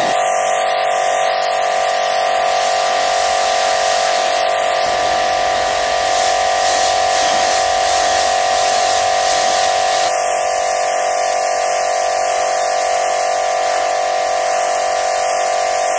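Pressure washer running with a steady high whine over the hiss of its jet spraying onto concrete paving, blasting dirt off it.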